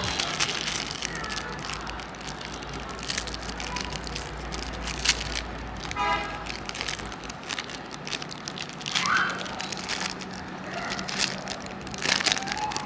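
Foil-lined plastic biscuit wrapper crinkling and crackling in the hands, close to the microphone, then torn open, with a quick ripping run about halfway through.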